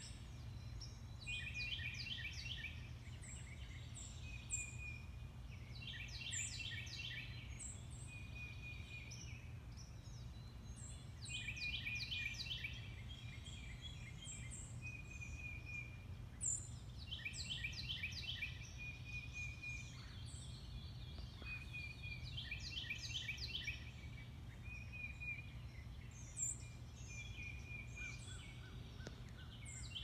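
Several songbirds singing together: one repeats a short burst of quick descending notes every five seconds or so, among shorter whistles and high chips from other birds, over a steady low rumble.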